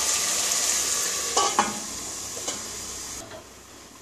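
Chicken pieces sizzling in hot mustard oil in a pot, with a few metal clinks about a second and a half in. Near the end the sizzle drops sharply as the pot is covered with a steel lid.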